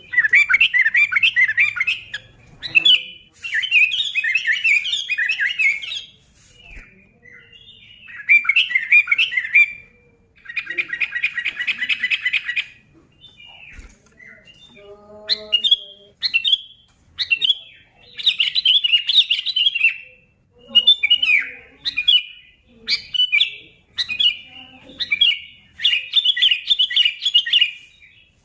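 Sooty-headed bulbul (kutilang) singing in vigorous bursts of rapid, bubbly chirps, each phrase a second or two long, with short pauses between them.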